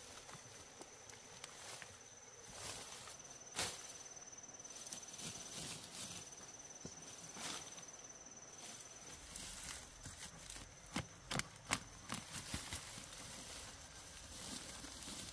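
A steady high insect trill over faint background hiss, with scattered sharp clicks and knocks; the sharpest come about three and a half seconds in and in a cluster around eleven to twelve seconds in.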